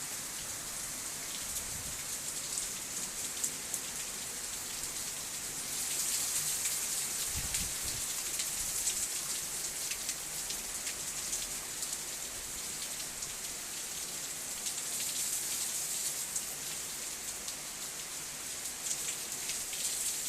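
Heavy rain mixed with sleet falling and pattering on surfaces, a steady hiss of many fine drops and ticks that swells for a few seconds in the middle and again later.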